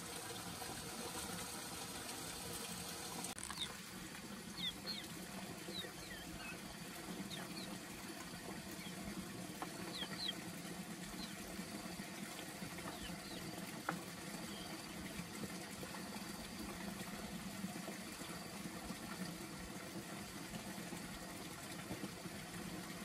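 Water trickling and dripping from a plastic bottle onto plants, over a steady low hum, with scattered short high chirps and ticks between about 3 and 11 seconds in.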